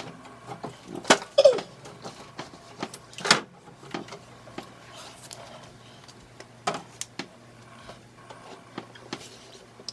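Scattered light knocks and clatter of household items being handled around an open refrigerator, with a short rustling burst about three seconds in.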